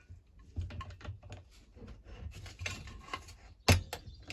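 Grips (pliers) working on the plastic parts of a petrol hedge trimmer: a string of small, irregular clicks and rattles, with one sharp, louder click about three and a half seconds in.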